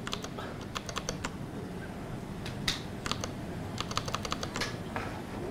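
Typing on a MacBook Pro laptop keyboard: several quick runs of key clicks with short pauses between them.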